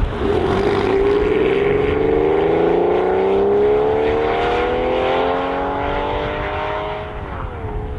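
A sports car engine under hard acceleration in one long pull, its pitch climbing steadily for about seven seconds, then dropping sharply near the end.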